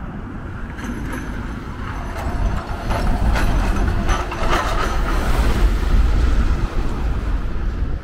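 Low rumble of a large vehicle passing close by, swelling to its loudest about five to seven seconds in, with rattling clanks along the way.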